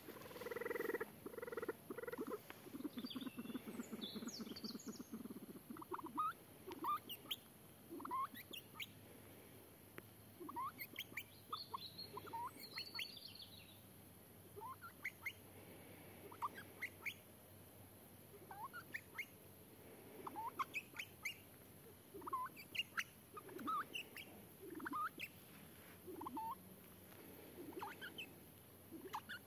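Male Reeves's pheasant giving soft, short clucking calls, repeated irregularly about once or twice a second. A small bird twitters briefly a few seconds in and again near the middle.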